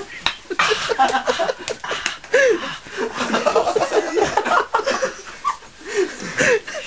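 People laughing and snickering in short, broken bursts, with a few sharp clicks in the first couple of seconds.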